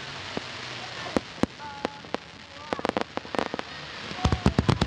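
Aerial fireworks bursting: a steady crackle with scattered sharp bangs. The bangs come in quick clusters about three seconds in and again, thickest, near the end.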